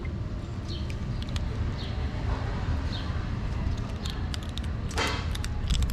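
Cats and kittens eating dry kibble: scattered crunching clicks over a steady low outdoor rumble. A short kitten mew stands out about five seconds in.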